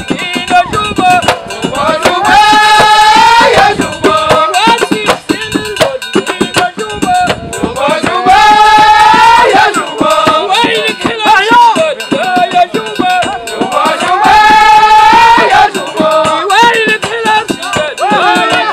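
Moroccan folk troupe performing: men singing in long drawn-out phrases that return about every six seconds, over steady hand-percussion beats.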